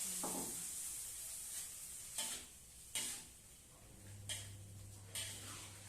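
Stir-fry sizzling in a wok, the hiss dying down in the first second, then a spatula stirring and knocking against the pan about four times.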